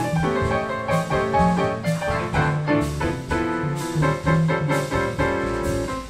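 Grand piano played without singing: a flowing instrumental passage of chords and melody over bass notes.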